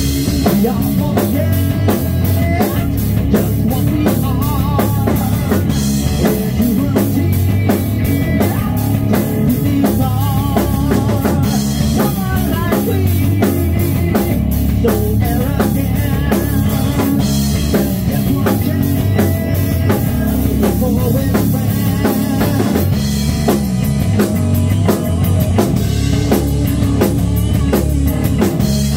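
Rock band playing live and loud: electric guitar, bass guitar and a Tama drum kit with a steady beat.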